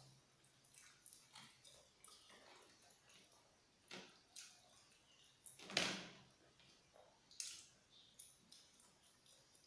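Faint sounds of eating at a table: scattered small clicks and knocks from food and hands, with one louder knock about six seconds in.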